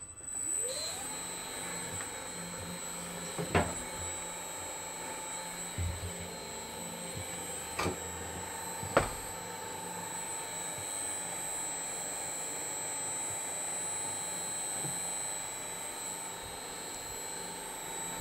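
Electric paper shredder motor switched into reverse, spinning up with a rising whine in the first second, then running steadily as it clears sticky goo from its cutters. A few sharp knocks come through in the first half.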